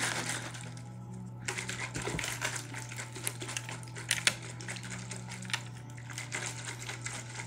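Plastic shaker cup of mixed drink being shaken, the liquid sloshing and the cup rattling in quick, irregular clicks.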